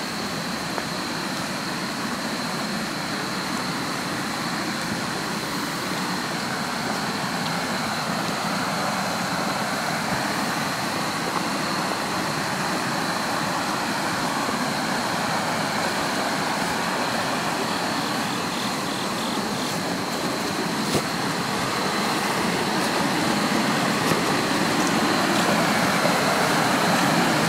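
Steady rushing of river water, an even constant noise that grows a little louder near the end.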